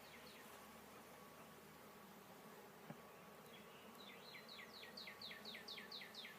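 Faint, steady hum of honeybees around an open hive. From about three and a half seconds in, a rapid series of falling chirps, about three a second, rises over the hum.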